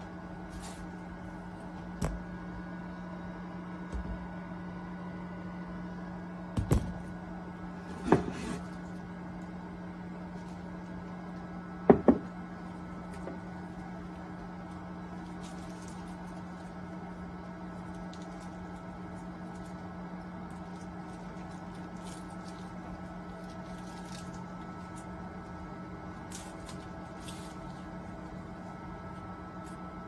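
Microwave oven running with a steady hum. A few short knocks break in, the loudest a double knock about 12 seconds in.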